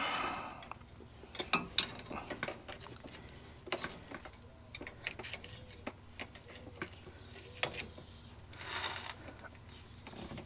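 Scattered light metallic clicks and taps of hand work on a truck's parking-brake cable and its bracket, with a short scraping rustle near the end.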